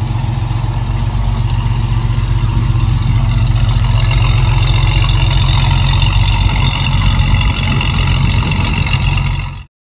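1970 Ford Mustang's V8 engine idling steadily, heard through its exhaust with a deep, rough pulse; it cuts off abruptly near the end.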